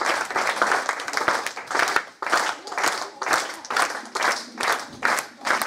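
Theatre audience applauding, the scattered clapping falling into rhythmic clapping in unison, about three claps a second, from about two seconds in.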